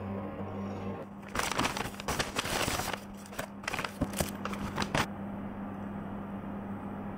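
Cardboard cake box and paper bag being handled, a dense rustling and crinkling for about four seconds with a few sharper clicks toward the end. A steady low hum runs underneath.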